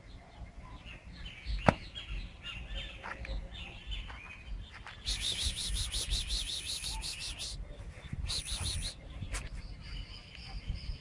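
Birds chirping in the background: scattered short chirps, then a long, fast, buzzy trill about halfway through and a shorter one soon after. A single sharp click a little under two seconds in.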